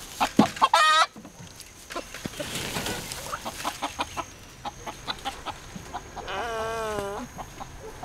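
Chickens clucking in short bursts, with a loud short call about a second in and a longer wavering call near the end.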